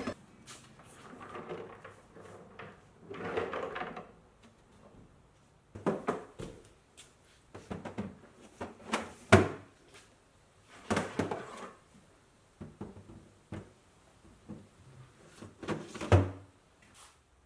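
Plastic Stanley Sortmaster organizer cases sliding along wooden rails in and out of a plywood rack. Scraping slides are followed by a series of sharp knocks and clatters as the cases hit home, with the loudest knocks a little past the middle and near the end.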